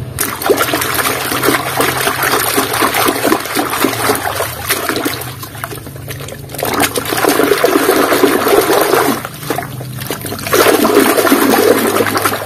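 Muddy water sloshing and splashing in a basin as a hand swishes and scrubs a plastic toy car in it, in three bouts with short quieter pauses between.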